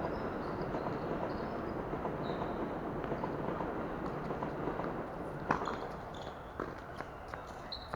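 Tennis ball struck sharply by a racket about five and a half seconds in, followed by a few lighter knocks of ball bounces or hits, over a steady background noise with short high squeaks.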